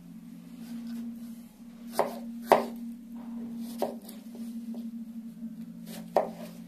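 A chef's knife slicing fresh strawberries on a white plastic cutting board. The blade knocks sharply on the board several times, loudest about two and a half seconds in, over a steady low hum.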